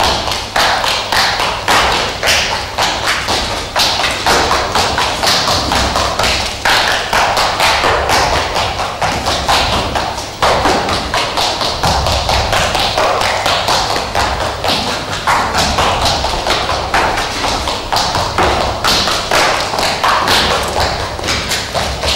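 Quick shoe taps and thumps on a stage floor from performers running and dancing, several a second without a break.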